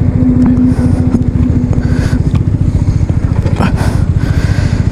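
Motorcycle engine idling with a fast, even beat. A steady hum rides above it and fades out about two seconds in.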